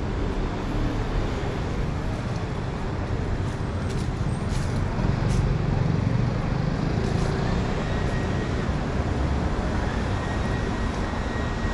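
City street traffic: a steady hum of passing cars, swelling as a vehicle goes by about five seconds in.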